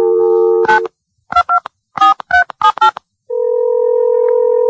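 Telephone line: a dial tone cuts off under a second in. A quick run of touch-tone (DTMF) keypad beeps, about eight, dials a number, and then a steady ring tone sounds for about two seconds as the call rings through.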